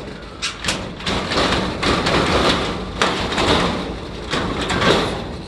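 A door being pulled shut and fastened: steady scraping and rattling with many sharp clicks, a hard knock about three seconds in and the loudest one near five seconds.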